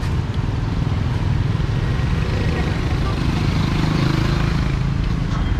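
Motorbike engines and street traffic running steadily, growing louder about halfway through as a motorbike comes past close by.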